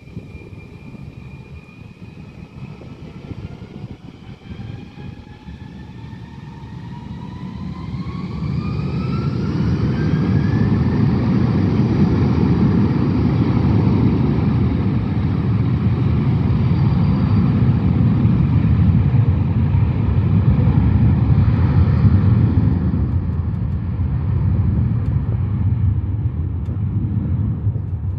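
Airbus A320 jet engines spooling up to takeoff thrust, with several whines rising in pitch over a few seconds. The engines then settle into a loud, steady jet roar as the airliner rolls down the runway on its takeoff run.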